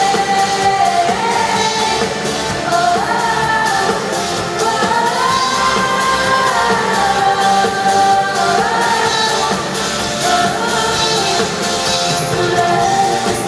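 Live pop song in an arena: a female lead singer holds long notes that glide up and down over the band's backing, with the echo of the large hall.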